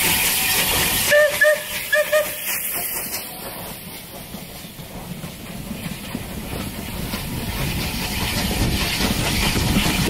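Steam locomotive hissing loudly as it passes, then quieter while the train's carriages roll by, the noise building again toward the end. Two pairs of short pitched notes come about one and two seconds in.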